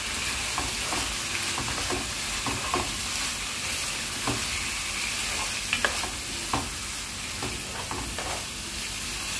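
Goat tripe and spices sizzling in oil in a granite-coated pot while a spatula stirs them during the bhuno (frying) stage. A steady frying hiss runs throughout, with scattered taps and scrapes of the spatula against the pot.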